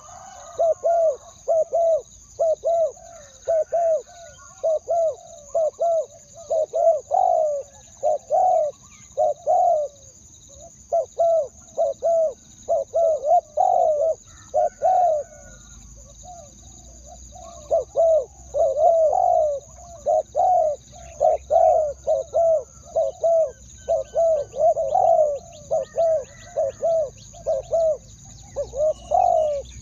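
Spotted dove cooing over and over in short phrases of a few notes each, with a pause of about two seconds midway. It is the decoy dove's calling song, used to lure wild doves.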